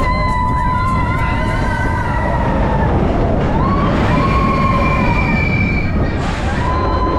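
Riders screaming on the Expedition Everest roller coaster, in long held, wavering screams with one falling near the end, over the heavy rumble and wind noise of the moving train.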